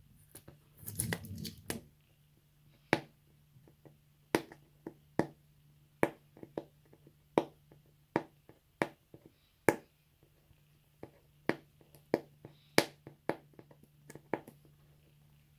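Plastic wrapping being torn and peeled off a phone's retail box: a short crinkling rip about a second in, then irregular sharp clicks and taps as fingers pick at the wrap and the cardboard box.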